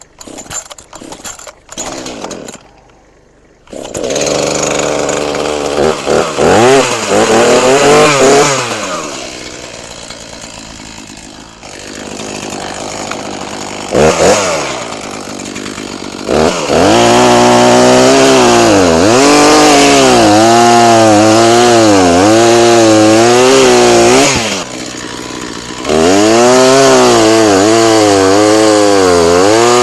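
Echo CS-490 two-stroke chainsaw, started on the choke: several quick pulls on the starter cord, then the engine catches about four seconds in and revs. It runs at a lower idle for a while, then goes to full throttle twice in long cuts through firewood logs, its pitch wavering under load, with a short drop back to idle between the cuts.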